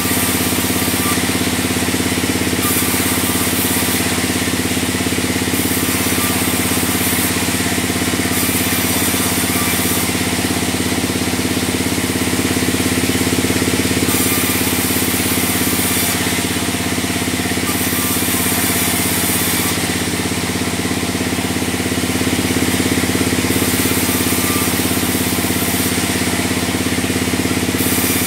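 Log band saw machinery running steadily, with a steady hum and a high hiss that comes and goes every second or two.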